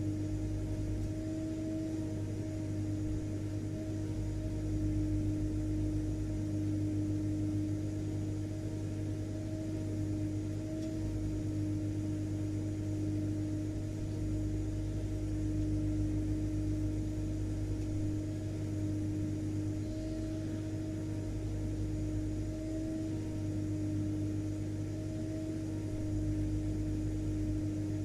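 Vacuum cleaner running continuously: a steady motor drone with a constant low hum and hum-like tone, holding the same pitch and level throughout.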